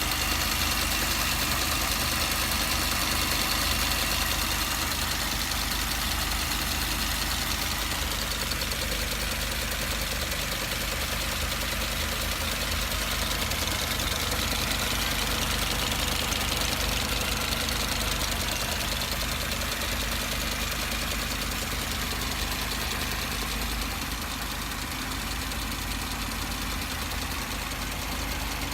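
Mercedes-Benz W245 B-Class running steadily with a weird noise that the owner cannot place. The car has been serviced and stores no fault codes, but it also has some vibrations.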